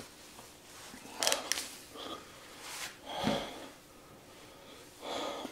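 A man breathing hard and noisily in short gusts, about four of them, sniffing and hissing air through his mouth as the extreme chili heat of a One Chip Challenge chip burns.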